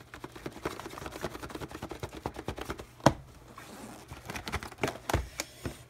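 Fingers scratching, tapping and prying at a cardboard game box as it is worked open: a rapid run of small clicks and scrapes, with a sharp knock about three seconds in and another near the end.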